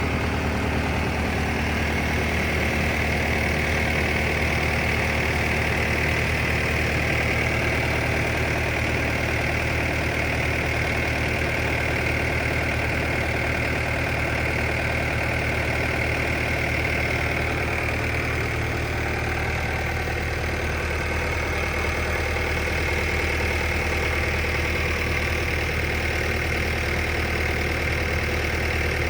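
An engine running steadily at an even speed, with no change in pace, while spray mix is being applied.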